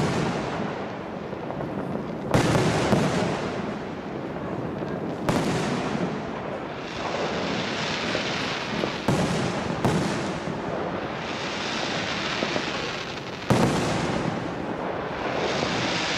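Large professional fireworks display: aerial shells bursting with about four sharp booms a few seconds apart, over continuous crackling and hissing from the effects.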